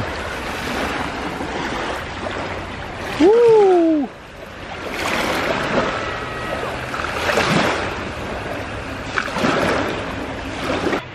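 Small waves washing in over sand, the noise swelling and easing in several surges. About three seconds in, a short wordless voice sound rises then falls in pitch and is the loudest thing.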